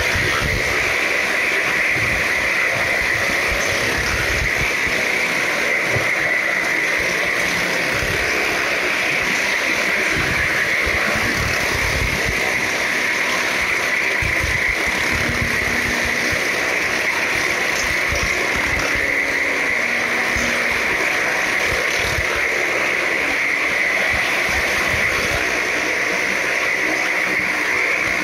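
Car and motorcycle engines running together as they circle the wall of a wooden well-of-death drum, a loud, dense, unbroken noise.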